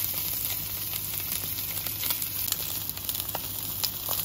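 Beef entrecôte searing fat edge down in hot oil in a frying pan with garlic cloves: a steady sizzle with a few small crackles.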